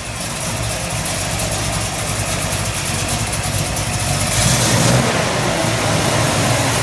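Chevrolet 327 small-block V8 with a four-barrel Holley carburettor, idling steadily while still cold, heard from the open engine bay. It gets a little louder a little over four seconds in.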